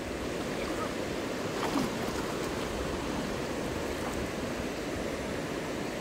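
Steady rush of a shallow river's current flowing around stones and around people wading in it.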